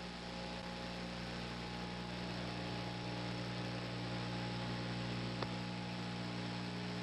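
Steady mains hum and tape hiss from an old reel-to-reel tape recording played on a Sony TC-766, with one faint click about five seconds in.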